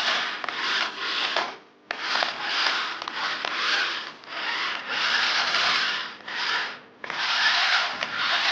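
Flymevac RC stunt car's electric drive motors and tyres running in a rough, hissing whirr, stopping and starting several times in stretches of about one to three seconds.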